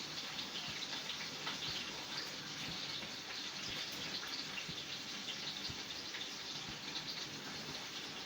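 Kitchen sink tap running steadily, with water splashing over vegetables being washed under it.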